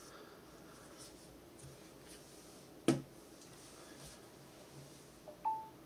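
Faint handling of a phone in a rubbery case, then one sharp click about three seconds in as the Samsung Galaxy Note 8 is set down on a wireless charging pad. Near the end comes a short two-note chime from the phone, stepping up in pitch, as it starts wireless charging.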